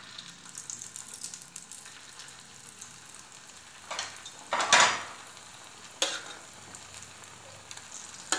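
Potato, bread and cheese sticks sizzling in hot oil in a frying pan as they are slipped in one at a time. The sizzle flares up louder about four, five and six seconds in and again near the end, loudest at about five seconds.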